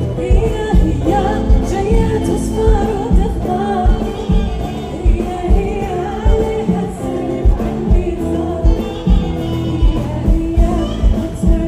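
A woman singing live into a microphone, with a band and a steady drum beat behind her, heard through the stage sound system.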